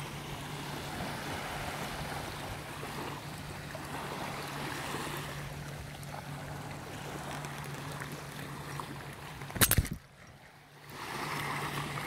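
Small waves lapping on a sandy shore, with wind on the phone's microphone over a steady low hum. A few loud knocks come near the end as the phone is handled on its selfie stick, and the sound dips briefly after them.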